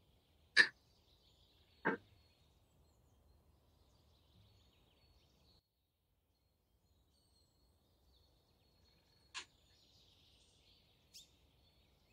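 Quiet kitchen handling with a few sharp clinks and taps of glassware: the loudest about half a second in, another just under two seconds in, and two fainter ones near the end. The sound drops out completely for a couple of seconds midway.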